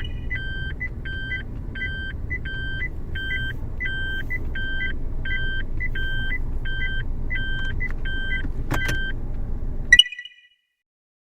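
A car running, heard as a steady low rumble from inside, with an electronic beep repeating about twice a second and one sharp knock near the end; the sound cuts off suddenly.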